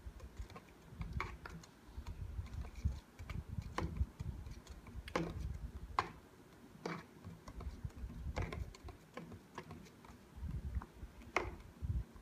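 Metal spoon stirring liquid in a plastic tub, clicking against its sides at irregular intervals, roughly once a second.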